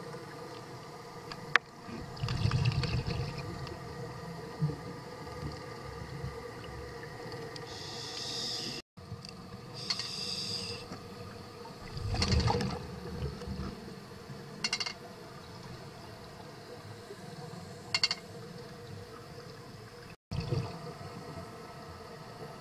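A scuba diver's regulator breathing underwater, picked up through the camera housing: hissing inhalations and low bubbling rushes of exhaled air, over a steady hum.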